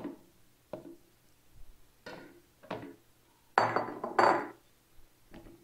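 Cleaver chopping through banana onto a wooden cutting board, a few separate knocks. Then two louder ringing clinks come about three and a half seconds in, as a glass bowl is set down on the counter.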